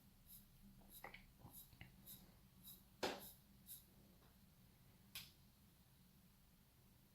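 Faint ratcheting clicks of a Steinhart Ocean Vintage Military's crown being hand-wound, winding its ETA automatic movement, about two clicks a second. A sharper click comes about three seconds in and another about five seconds in.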